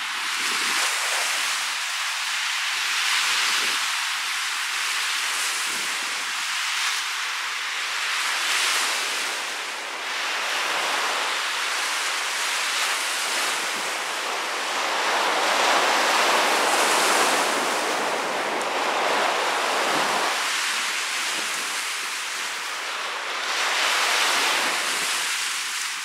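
Lake surf breaking and washing up a sandy shore in a strong wind, a steady rushing hiss that swells and eases every several seconds as each wave comes in, with wind blowing across the microphone.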